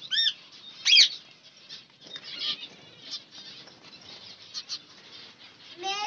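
Caged birds fluttering their wings and calling in short chirps, the loudest a sharp call about a second in.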